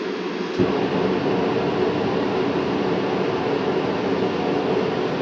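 Reddy Heater propane forced-air heater (30,000–55,000 BTU): the fan is running, and about half a second in the burner lights off with a sudden thump. It then settles into a louder, steady rush like a little turbine.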